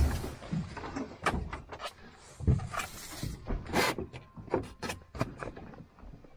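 Scattered knocks, clicks and rustles of gear being handled aboard a small boat, with a low thump at the start and a sharper knock near the middle, over a low steady rumble.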